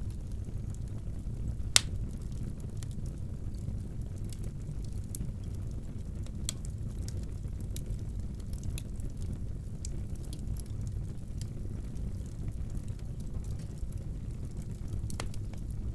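Wood fire burning in a fireplace: a steady low rumble with scattered sharp crackles, the loudest pop about two seconds in and another near the end.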